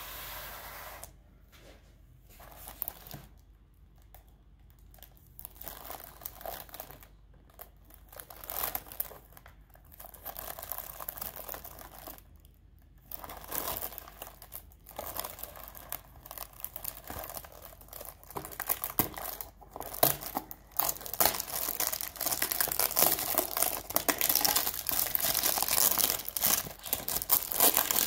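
Clear cellophane wrap on a cardboard tea box crinkling and tearing as it is handled and peeled off. At first there are scattered rustles with quiet gaps; from about two-thirds of the way through they grow louder and almost continuous.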